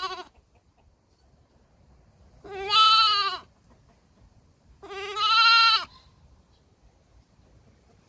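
Baby goat bleating: the end of one bleat right at the start, then two full bleats of about a second each, a couple of seconds apart, each with a wavering pitch that drops at the end.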